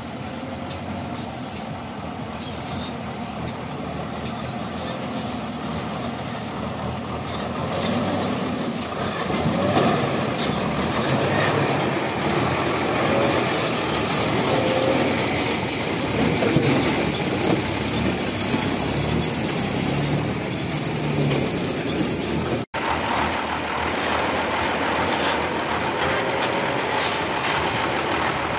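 Loaded REO 6x6 army truck crawling over a rocky track: engine and drivetrain running under load, with tyres grinding over stones and the chassis clattering. It gets louder about eight seconds in as the truck reaches the microphone, with a brief cut about three-quarters of the way through.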